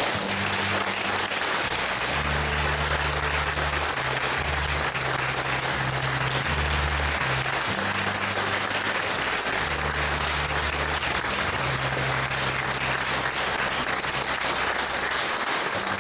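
Audience applauding steadily, with music playing low notes underneath that change every second or so.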